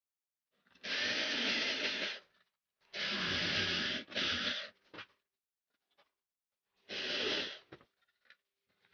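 Electric drill with a twist bit boring holes through a thin painted wooden panel, in four short runs of about a second each, the second and third almost back to back. A few light clicks follow near the end.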